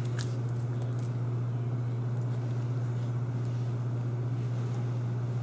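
A steady low hum with no change in level, and a faint click just after the start.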